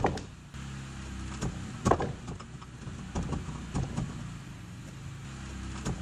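Hydraulic power pack running steadily, driving the pipe burster while the new HDPE pipe is pulled into the ground, with scattered sharp knocks.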